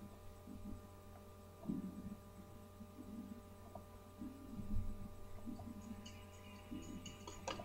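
Steady electrical mains hum picked up by a webcam microphone, with faint muffled low sounds, a low thump about halfway through and a sharp click near the end.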